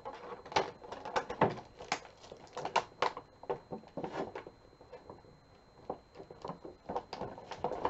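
Stiff clear plastic packaging crackling and crinkling in irregular clicks as hands work at the twisted wire ties fastened through it.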